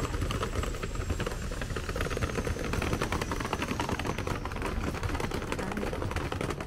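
Hard-shell suitcase's wheels rolling over a mosaic-tiled walkway, a steady rattle of rapid clicks.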